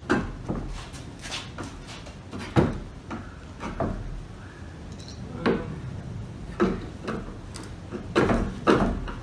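Claw hammer knocking on and prying at a wooden Euro pallet board to pull out protruding nails: about ten sharp, irregularly spaced knocks, the loudest about two and a half seconds in and a cluster near the end.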